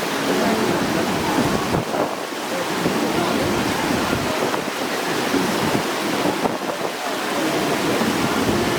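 Steady rushing noise of fast-running mountain water, with wind on the microphone.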